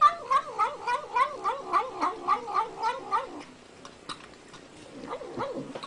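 Domestic cat vocalising while it eats: a quick run of short calls, about three or four a second, each bending up and down in pitch like a chanted "nom nom nom". The run stops a little over three seconds in, and a few fainter calls follow near the end.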